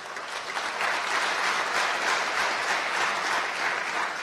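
Audience applauding, building about half a second in and thinning out near the end.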